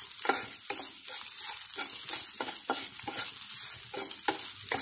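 Wooden spatula stirring and scraping grated coconut around a nonstick frying pan, about three strokes a second, over a soft sizzle of the coconut frying in a little oil.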